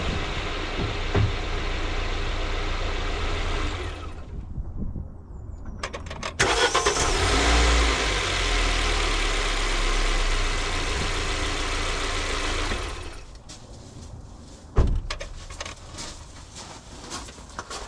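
MG ZS engine idling, then switched off about four seconds in. A couple of seconds later another loud steady running noise follows for several seconds. After that comes a scatter of clicks and knocks, with one sharp knock.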